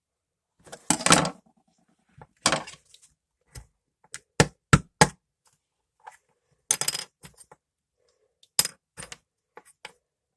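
Small hard mechanical-pencil parts knocking and clinking against a hard surface in about a dozen irregular sharp taps, some with a brief ring, as a spring stuck inside is worked at to get it out.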